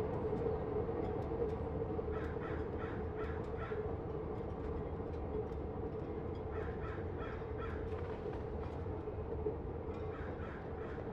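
Steady low mechanical drone of a steamship's engines in a harbour soundscape, with runs of four to six short harsh bird calls, about three a second, a couple of seconds in, again around the middle, and near the end.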